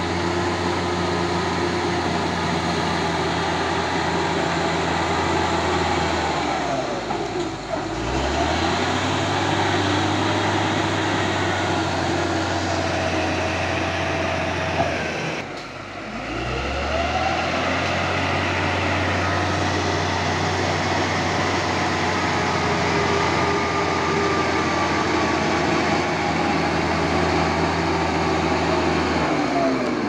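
Caterpillar D6G crawler bulldozer's diesel engine running steadily under load as it works. Its note drops and picks back up about a quarter of the way in, around the middle, and again at the end.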